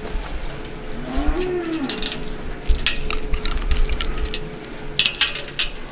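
A steel gate chain rattles and clinks against its metal latch as it is handled, in two bursts about three seconds and five seconds in. A cow moos briefly about a second in.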